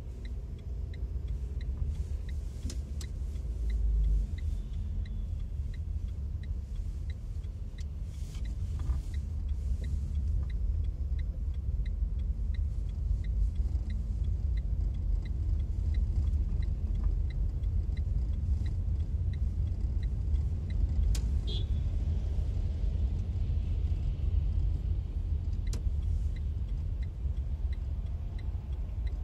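Car cabin noise while driving on wet city streets: a steady low rumble of engine and tyres. A faint regular ticking runs through the first half, and a few sharp clicks come in the second half.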